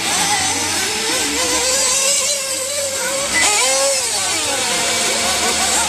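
Several RC off-road buggies' small nitro engines whining, the pitch rising and falling over and over as they throttle up and ease off.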